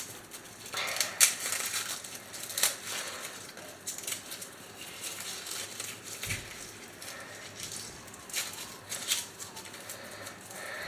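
Garlic being peeled by hand: the dry, papery skin crackles and rustles, with irregular small clicks and taps.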